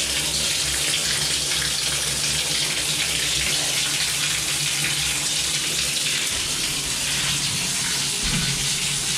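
Water pouring in a steady stream from a bare shower-arm pipe stub, with no shower head fitted, splashing onto the shower floor: a continuous, even rushing hiss.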